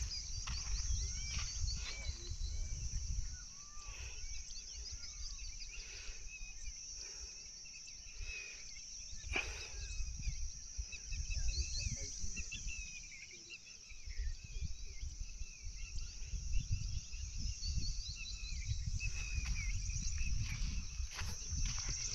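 Orchard ambience: a steady high insect chorus with many small bird chirps over it, and a low rumble and occasional knocks from the microphone being carried.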